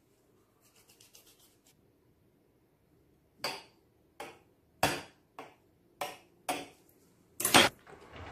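A knife stabbing air vents through an egg-washed puff-pastry pie lid, its blade knocking sharply against the pie dish beneath about seven times over four seconds, the last knock the loudest. A few faint soft strokes come first.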